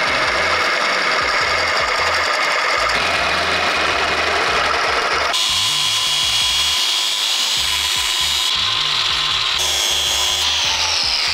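Power drill boring through quarter-inch steel flat bar, first a pilot hole and then a larger one, the bit cutting with a steady whine. The sound shifts abruptly a few times, and a falling whine near the end is the drill spinning down.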